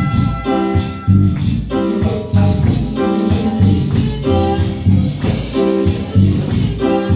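Instrumental passage of an upbeat Latin-style Christian praise song: chords and bass struck in a steady, even rhythm, with shaken maracas.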